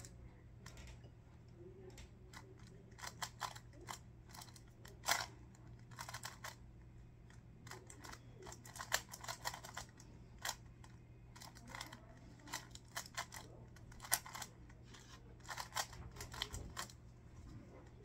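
Magnetic Rubik's cube being turned fast by hand: irregular runs of short plastic clicks and clacks as the layers twist and snap into place, with brief pauses between bursts.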